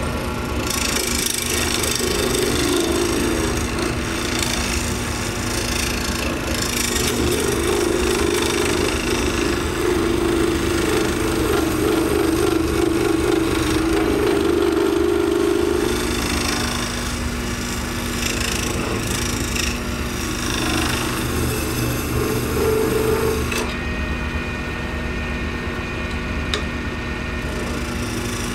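A benchtop lathe spins a hand-poured acrylic resin duck-call blank while a hand-held turning tool scrapes it down: a steady motor hum under a rough, uneven scraping hiss. The scraping falls away for a few seconds near the end while the lathe keeps running.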